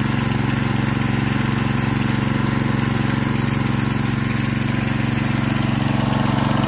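Bamboo B-200 small petrol engine running steadily, driving a Sanchin SCN-20 piston spray pump, with a fast even firing beat.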